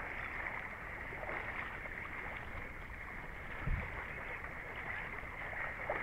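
Water sloshing and swirling around the legs of a person wading slowly through a waist-deep creek. A single low thump comes a little past the middle.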